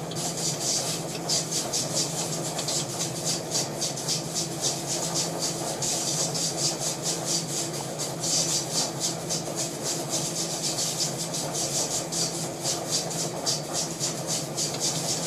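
Jewelry laser welder firing a steady run of pulses into a gold ring to fill porosity pits from casting: sharp ticks, several a second, over the welder's steady hum.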